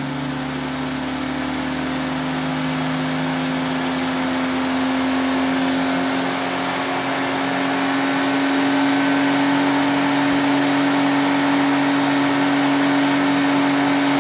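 Nissan GT-R's VR38DETT 3.8-litre twin-turbo V6 running on an engine test bench, held at one steady engine speed under heavy load, hot enough that its turbocharger glows red. The note holds its pitch and grows slowly louder.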